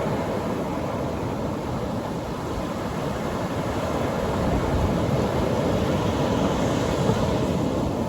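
Atlantic Ocean surf breaking on a beach: a steady rushing wash that swells a little about five to seven seconds in as a wave comes in.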